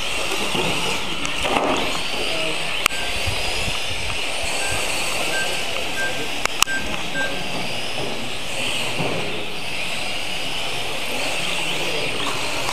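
Several electric mini RC cars racing on a carpet track, their motors whining and rising and falling with the throttle. Two sharp knocks, about three and six and a half seconds in, and a string of short beeps in between.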